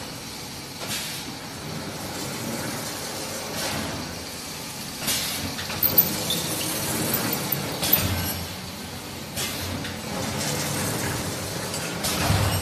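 Automatic disc-knife foam cutting machine running, slitting EPE foam sheet into strips: a steady machine noise with irregular hissing surges every second or two and a couple of sharp clicks about halfway through.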